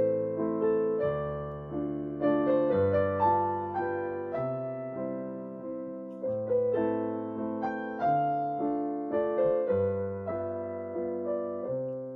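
Background piano music: a gentle melody of held notes over a slow bass line.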